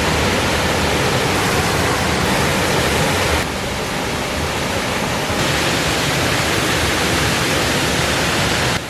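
Waterfall rushing at close range, a steady loud wash of falling water that dips slightly about three and a half seconds in, then comes back up.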